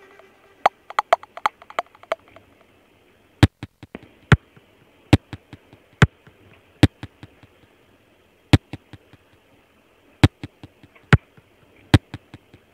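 Sparse sharp clicks at a steady pace, a strong one about every 0.8 s with fainter ticks between, over a faint hiss. A quick cluster of softer ticks comes in the first two seconds.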